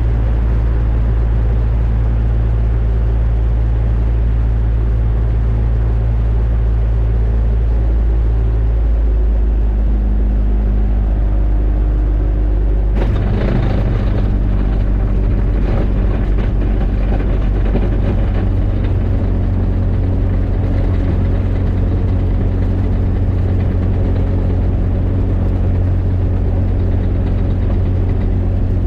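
Rotax 582 two-stroke engine of an X'Air microlight running steadily. Its pitch shifts between about 9 and 13 seconds in, a rough rattling stretch comes in at about 13 seconds, and the engine then settles into a new steady note.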